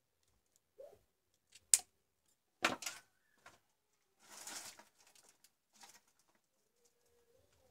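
Side-cutting pliers snipping a wire with one sharp snap, followed by a few clacks of the tool being handled and a short rustle.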